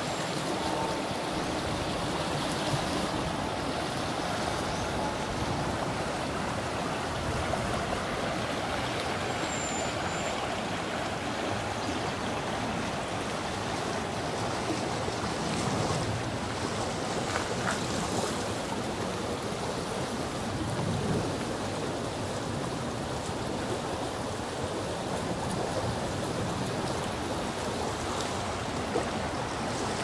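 Shallow, fast river running over rocks and riffles: a steady wash of flowing water.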